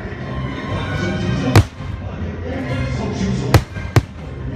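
Fireworks bursting over a show's soundtrack music: three sharp bangs, one about a second and a half in and two close together near the end.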